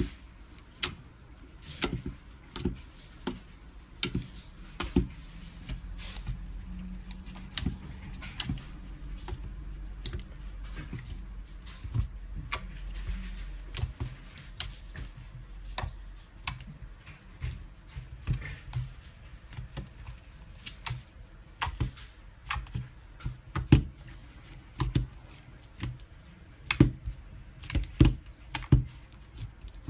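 Hands squeezing and poking slime, giving irregular sharp clicking pops, with a low rumble of handling underneath from about six to sixteen seconds in.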